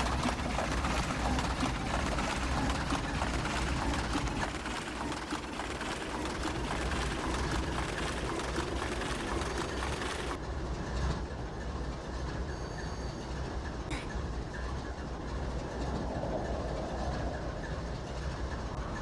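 A train running past with a continuous rumble and rail noise; the high-pitched part falls away about ten seconds in, leaving a lower rumble.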